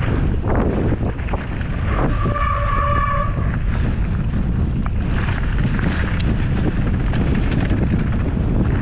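Wind buffeting the microphone and a mountain bike's tyres rolling fast over a loose gravel and dirt trail, with the bike rattling over small stones. A brief high squeal lasts about a second and a half, starting two seconds in.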